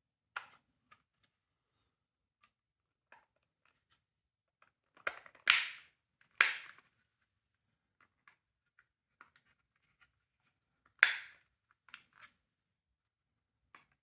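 Sharp clicks and snaps of the smoke detector's hard plastic parts being handled and worked apart. There are three louder snaps about five to six and a half seconds in and another near eleven seconds, with light ticks between them.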